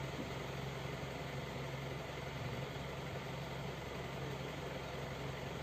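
Steady low hum of an idling vehicle engine, even and unchanging, over a constant background hiss.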